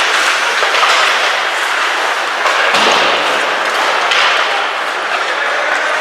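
Ice hockey play in a rink: a steady noisy rush of skates and play on the ice, with a few sharp knocks of sticks and puck, and a thud against the boards.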